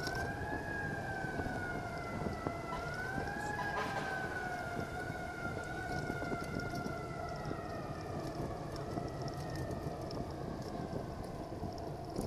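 A siren wailing in slow rises and falls, fading away over the last few seconds. Steady wind and road noise from the moving bicycle run underneath.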